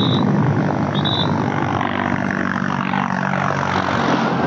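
Tractor engine passing close by, its note sliding down in pitch as it goes past, over heavy wind rush on the microphone from a fast downhill bicycle ride. Two short high-pitched tones sound near the start.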